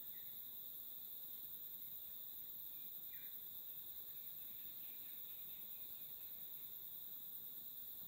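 Steady high-pitched insect chorus from the bush, with a few faint short chirps in the middle.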